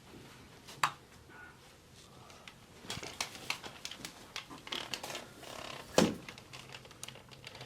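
Footsteps of a person walking around, with scattered light clicks and rustles and one louder thump about six seconds in.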